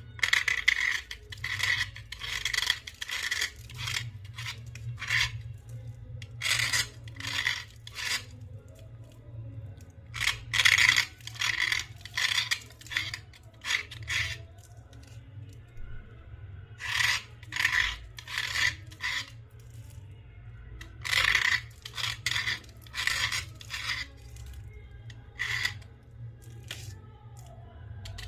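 Slate scraped in short rasping strokes, coming in irregular runs of several strokes with pauses between, over a faint steady low hum.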